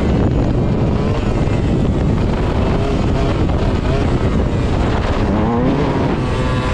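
Yamaha YZ125 two-stroke dirt bike engine running under throttle during a wheelie, its pitch rising and falling, with a sharper climb about five seconds in. Heavy wind rush on the helmet-mounted microphone.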